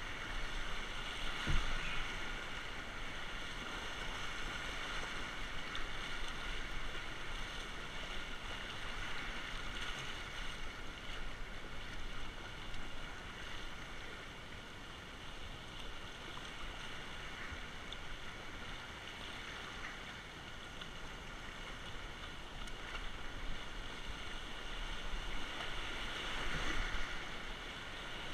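Rushing whitewater of river rapids around a kayak: a steady hiss of fast water that grows louder near the end as the kayak runs into broken water. A single sharp knock about a second and a half in.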